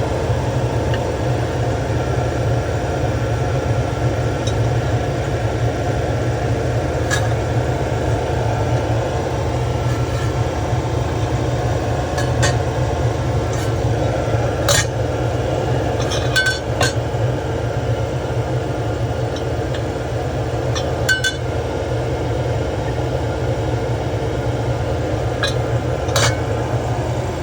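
Steady machine hum with a faint held tone, broken by scattered sharp clinks and ticks.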